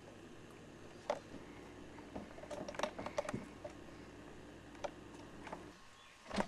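Irregular light clicks and taps of a utensil against a saucepan while butter and cream are stirred into the hot brown-sugar syrup, over a steady low hum that stops about six seconds in.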